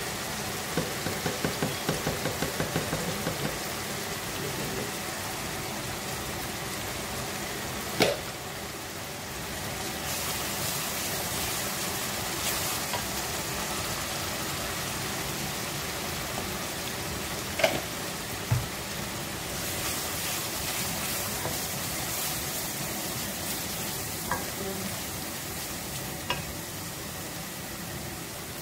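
Spice paste sizzling in hot oil in a metal karahi while a wooden spoon stirs it, with a quick run of scraping strokes in the first few seconds. There are a few sharp knocks, and the sizzle grows louder about ten seconds in and again around twenty seconds.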